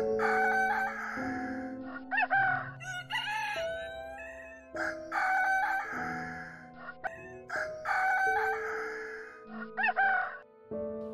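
Rooster crowing several times in succession over background music with a steady melody.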